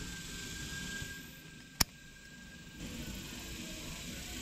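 A single sharp click a little under two seconds in, over a faint steady hiss and a thin high whine that stops soon after.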